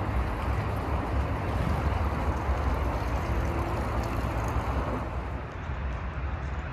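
Road traffic on a city street: a steady rush of car noise with a deep rumble, easing a little about five seconds in.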